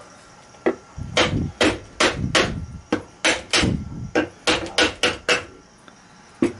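A mallet striking the reassembled electric motor's housing about a dozen times in quick succession, two to three blows a second, then once more near the end. The blows are tapping the end bell and bearing into place.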